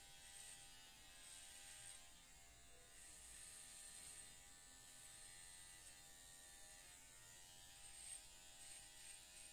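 Cordless electric hair clipper buzzing faintly and steadily as it shaves a man's head close to the scalp.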